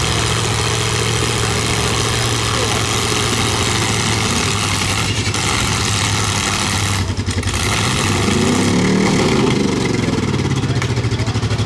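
Demolition derby car engines running steadily, with one engine revving up and back down about eight seconds in.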